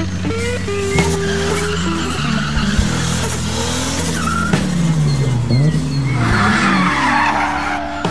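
Car engines revving, with tyres squealing near the end, over a steady music track.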